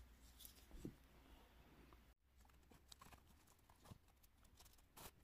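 Near silence: faint rustles and a few light taps as a cord is threaded through a cloth pouch's drawstring casing with a metal threader.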